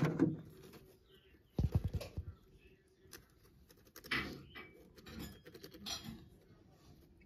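Muscovy ducklings shuffling and pecking about in wood-shaving bedding: soft, irregular rustling and scratching, with a louder dull bump about one and a half seconds in.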